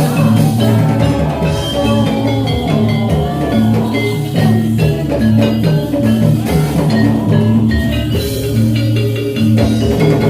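Javanese gamelan ensemble accompanying a jathilan dance: metallophones strike a repeating melody over a steady drum beat.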